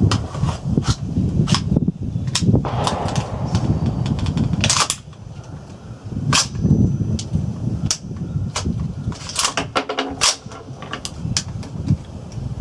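An irregular series of sharp clicks and cracks from a reproduction Armalite AR-15 rifle and its magazine, a few much louder than the rest, over a low wind rumble on the microphone.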